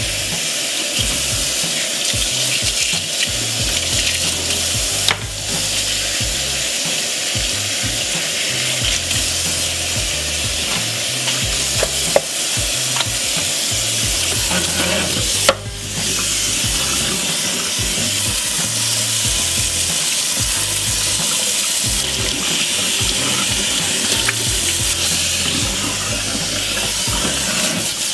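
Kitchen faucet running a steady stream of water into a stainless steel sink while rubber-gloved hands scrub and rinse cleanser out of the basin. A couple of brief knocks, about five and fifteen seconds in.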